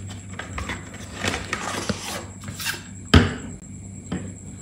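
Hands handling a small cardboard box and a bottle: rustling and scraping as the bottle is slid out of the box, then one sharp knock about three seconds in as it is set down on the desk.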